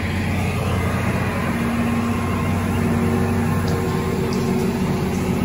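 Heavy construction machinery engine running steadily, a constant low hum that holds the same pace throughout.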